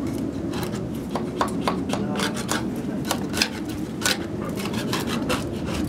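Hand scraper scraping flaking paint off an old wooden window frame in short, uneven strokes, about two a second.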